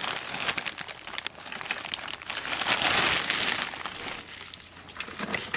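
Plastic bag of potting soil crinkling and rustling as it is handled, loudest about three seconds in.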